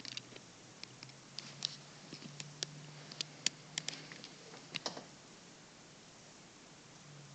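Irregular faint clicks and taps, a dozen or so spread over about five seconds, over a low steady hum; after that only the hum remains.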